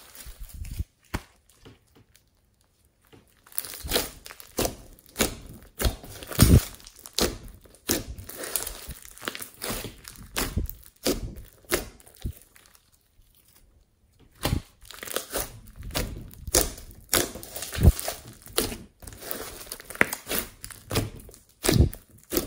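Thick slime speckled with coloured bits being squeezed, pressed and stretched by hand, giving a dense run of sticky clicks and small pops as it pulls apart and trapped air is pressed out. It pauses briefly twice, about a second in and near the middle.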